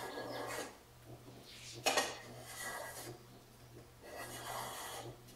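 Small hand plane shaving bamboo strips held in a steel planing form: about four short scraping strokes, one sharper and louder about two seconds in.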